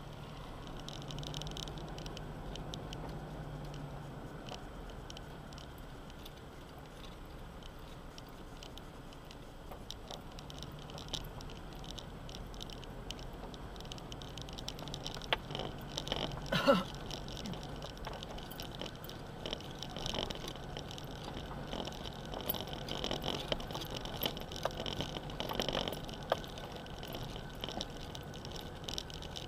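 Off-road 4x4 driving slowly over a rough stony track: a low engine drone under a constant clatter of gravel and cabin rattles, which grows busier about a third of the way in, with one sharp knock a little past the middle.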